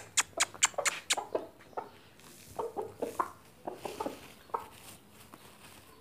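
Chickens pecking scattered wheat grain off a concrete floor: a quick run of sharp taps in the first second, then scattered softer pecks and low clucking.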